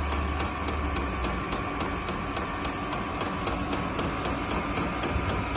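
Chinese diesel air heater in its start-up sequence before ignition: the fuel dosing pump ticking evenly about five times a second over the steady hum of the blower fan.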